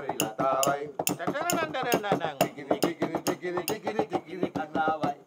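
Singing voices over a fast, even clinking beat, about four strikes a second, tapped out on the plates and glasses on the table.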